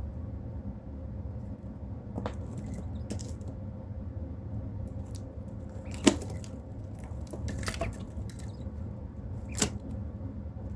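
About five short, sharp clicks or taps, the loudest about six seconds in, over a steady low hum.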